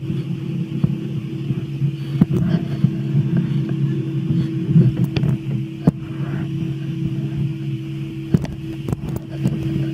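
Steady hum of a Cabri G2 helicopter's cabin during shutdown, picked up through the headset intercom, with scattered short clicks.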